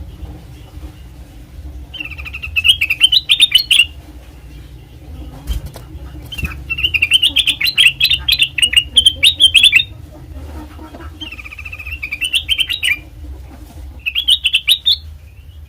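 Kutilang emas bulbul singing: four bursts of rapid, chattering notes that climb in pitch, the longest in the middle, over a steady low hum.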